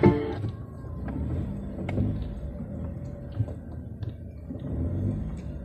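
Low, uneven rumble of a car heard from inside the cabin as it rolls slowly along, with a few faint clicks.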